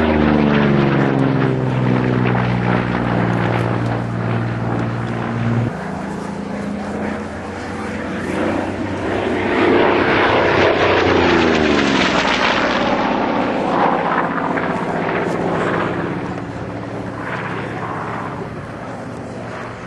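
Goodyear FG-1D Corsair's Pratt & Whitney R-2800 18-cylinder radial engine running hard in aerobatic flight. The engine note drops in pitch as the fighter sweeps past, once at the very start and again about ten to twelve seconds in, and is loudest during those passes.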